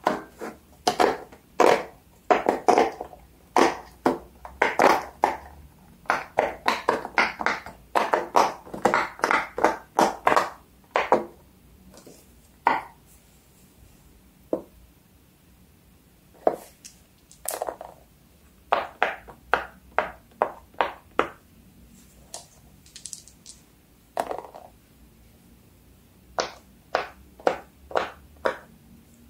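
Fidget toys being handled: quick runs of short, sharp pops and clicks, dense for the first dozen seconds, then sparser with another run near the end.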